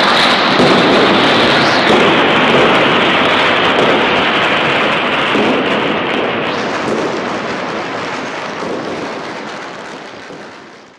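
Dense, continuous crackling of firecrackers and fireworks, a loud unbroken din that fades away over the last few seconds.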